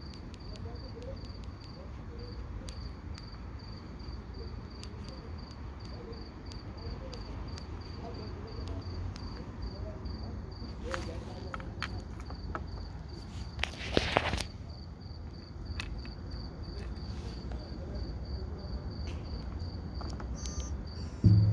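A cricket chirping steadily, about two chirps a second, over a low background rumble. Small clicks of watch buttons being pressed are scattered through it, with a brief handling rustle a little past halfway and a thump near the end as the watches are set down on the wooden bench.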